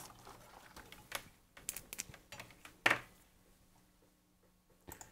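Faint, irregular light clicks and taps from handling small objects, test leads and a computer mouse at an electronics workbench, with one louder knock about three seconds in.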